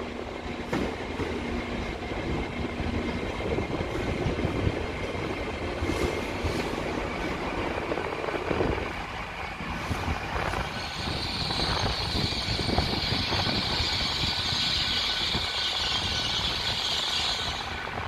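A TransPennine Express train running slowly into the platform, its wheels rumbling and knocking over the rails. About halfway through a steady high-pitched squeal sets in as it slows.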